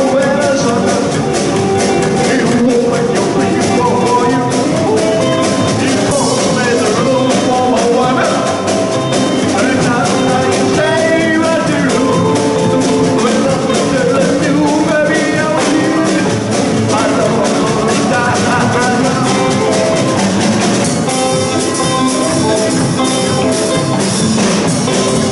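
Live rockabilly trio playing: upright double bass, hollow-body electric guitar through a small amp, and a Gretsch drum kit.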